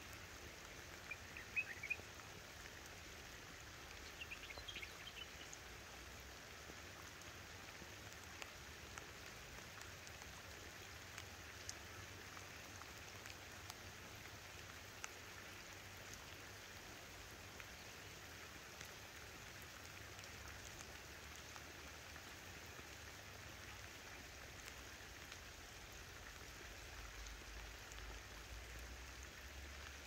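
Rain falling steadily: a faint, even hiss with scattered sharper drop ticks. Twice in the first five seconds, brief high chirps stand out above it.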